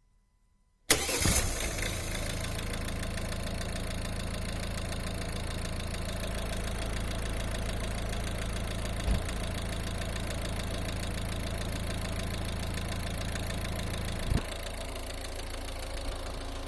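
PSA 1.6 HDi DV6C four-cylinder diesel engine, warmed up, coming in suddenly about a second in and then idling steadily with a knock or rattle that appears only when the engine is hot and does not change with the clutch pressed. A short thump comes near the end, after which the low engine note drops.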